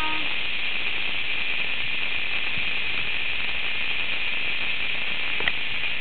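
A steady chorus of cicadas, an unbroken high-pitched buzzing drone, with a single brief click near the end.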